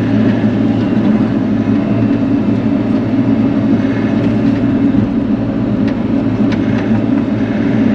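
Bobcat E42 mini excavator's diesel engine running steadily under load with a constant low drone, with a couple of faint clicks about six seconds in.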